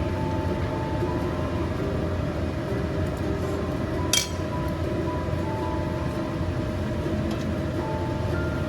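A steady low rumble with a few faint held tones, and one sharp clink of kitchenware about four seconds in.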